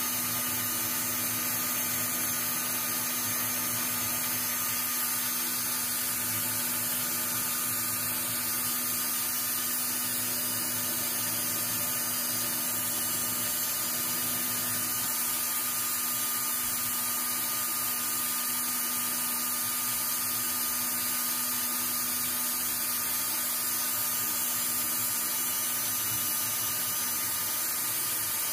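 Small electric motor running at a steady speed, spinning a pool cue shaft while its mushroomed tip edge is trimmed: an even hum with a constant low tone.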